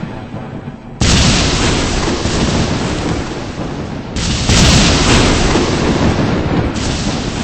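Thunder: two loud cracks, about a second in and again about four seconds in, each rolling on as a long rumble that slowly fades.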